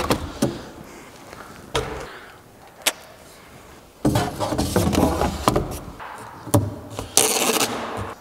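A stainless steel exhaust downpipe being packed into a cardboard box: scattered knocks and cardboard rustling as the pipe is set in and the flaps are folded over. Near the end comes a short, harsh rip of packing tape pulled off the roll to seal the box.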